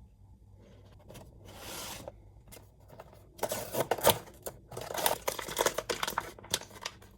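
Blind-box packaging being torn open and crinkled by hand: a brief rustle, then a quick run of rips and crackles from about three seconds in.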